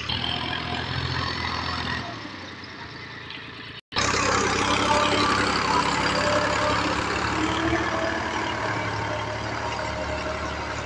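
Powertrac 435 tractor's three-cylinder diesel engine running steadily while pulling a cultivator through the soil. A brief gap just before four seconds in, after which the engine sounds louder and closer.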